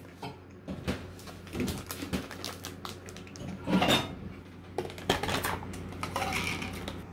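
Scattered light clicks and clinks of breakfast tableware and food handling: a snack bag of mixed nuts and stoneware bowls with a spoon. The strongest knock comes about four seconds in.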